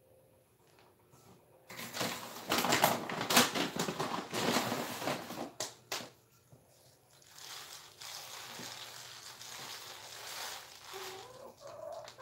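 Dry leaves and wood-shaving bedding crackling and rustling as a silkie chicken scratches and steps through it, loudest over the first half, then a softer rustle.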